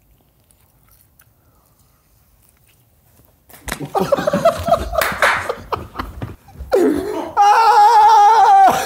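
Quiet for about three and a half seconds, then loud laughter, ending in a long, high-pitched, wavering laugh near the end.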